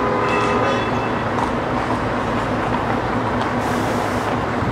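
A tour coach's diesel engine running close by, a steady low drone with street noise. A brief high whine sounds about half a second in, and a short hiss comes near the end.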